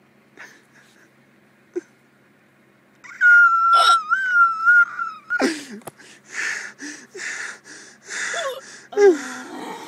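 A person's high-pitched squeaky laugh: a loud, thin squeal held for about two seconds, dropping in pitch at its end, then a run of breathy, wheezing gasps of laughter, a couple each second.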